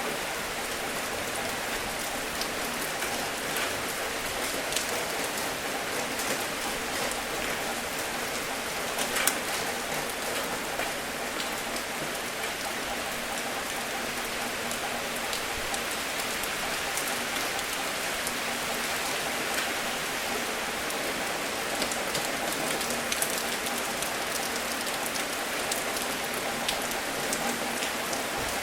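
Steady rain falling on a surface, a continuous hiss dotted with individual drops ticking, some louder ones standing out now and then.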